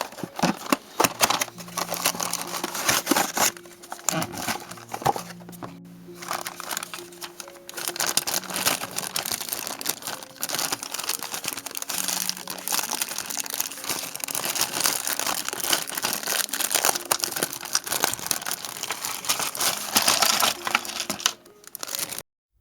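Plastic packaging crinkling and crackling in rapid, irregular bursts as a toy is unpacked by hand, over soft background music. The crinkling stops suddenly near the end.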